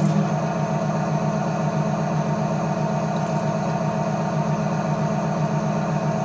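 Electric potter's wheel motor running at a steady speed, a constant hum.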